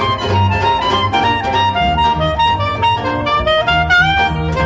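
Jazz trio playing: a clarinet carries the melody with sliding notes and an upward run near the end, over a strummed banjo and a plucked double bass.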